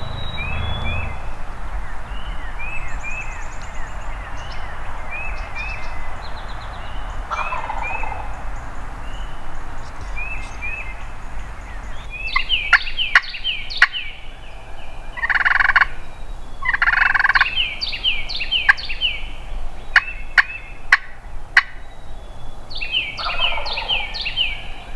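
Wild turkey gobbler gobbling repeatedly at first light, each gobble a quick run of falling notes, the gobbles coming louder and more often after about halfway. A steady hiss lies under the first half.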